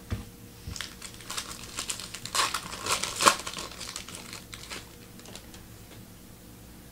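Crinkling of a trading-card pack's foil wrapper being handled and torn open: a run of irregular crackles over a few seconds, loudest around the middle.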